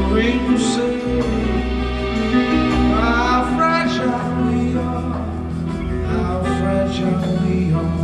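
A man singing long held notes over a nylon-string classical guitar, with steady low bass notes underneath.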